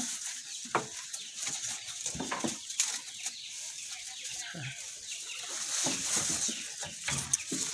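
Goats jostling at a wooden slatted feeding trough: irregular knocks and thumps of hooves and heads against the boards, a few seconds apart.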